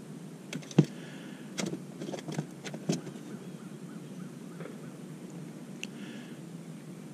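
A quick cluster of sharp clicks and knocks, the loudest about a second in, over a steady low background noise.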